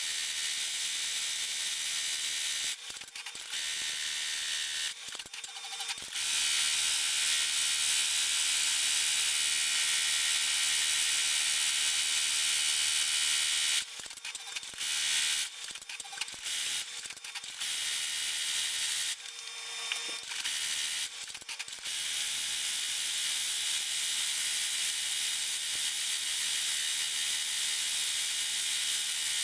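Multi-needle embroidery machine stitching at speed, a dense, fast mechanical rattle with a hissy edge. It breaks off briefly a few times, about 3 and 5 seconds in and again several times between about 14 and 22 seconds in, as the machine stops and changes thread colour.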